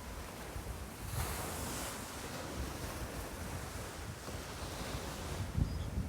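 Wind buffeting the microphone over the wash of sea waves against the sea wall, with a louder surge of surf a little over a second in and a low buffet thump near the end.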